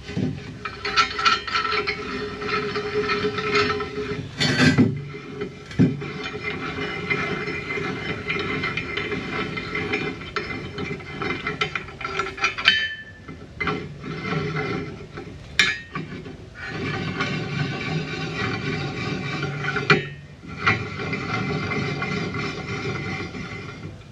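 Dense, rapid metallic clicking and rattling of steel pallet-fork hardware being worked on, like a ratchet, broken by a few sharp metal knocks and two short pauses.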